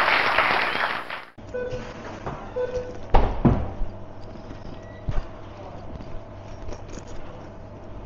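A noisy, applause-like rush from the intro sound effect cuts off about a second in. Then comes the sound of the sandwich-shop counter: a steady hum with several knocks and clatters, the loudest a little after three seconds.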